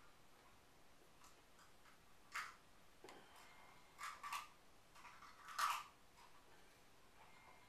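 Near silence, broken by a few brief soft rustles and taps from a person's hands and clothing as they sign, the loudest a little over halfway through.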